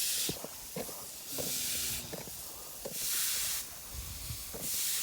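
Water spraying from a hose nozzle across freshly laid exposed-aggregate concrete, washing the surface slurry off the stone. The hiss swells and fades about every second and a half as the spray sweeps back and forth.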